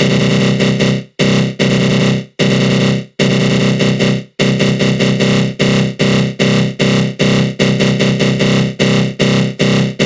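Synthesized 'attack growl' sound effect: a harsh, buzzing synth tone made with the GMS synth and a flanger, with its energy low down. It comes in repeated chopped pulses, a few longer blocks with brief cut-outs in the first four seconds, then faster, shorter pulses for the rest.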